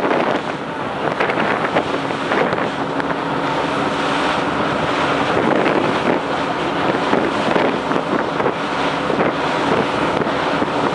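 Wind buffeting the microphone on the open deck of a ferry under way. Beneath it run the boat's steady engine hum and the rush of water.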